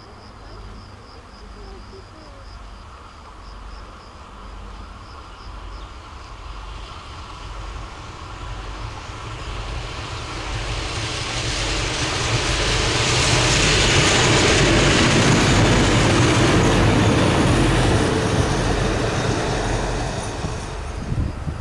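SNCF diesel locomotive approaching and passing: the engine's low hum and the rush of wheels on rail grow steadily louder, peak about two-thirds of the way through, then drop away near the end as it goes by.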